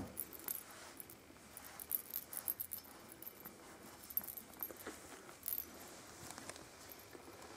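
Small bell on a kitten's collar jingling in short, irregular bursts as the kitten moves.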